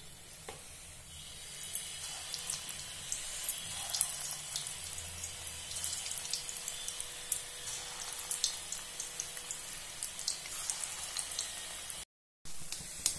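Matar (green pea) kofta balls deep-frying in hot oil in an aluminium kadai: a steady sizzle dotted with many small crackles and pops. The sound drops out briefly near the end.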